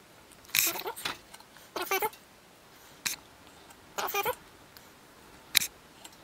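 A cat meowing three times in short calls, with two sharp clicks between them; the second click is the loudest sound.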